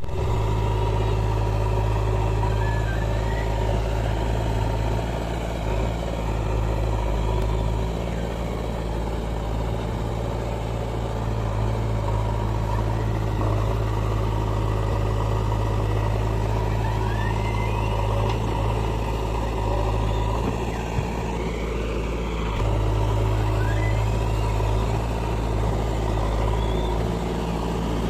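Heavy diesel engine of farm and earthmoving machinery running steadily, its note easing off and picking up again a few times.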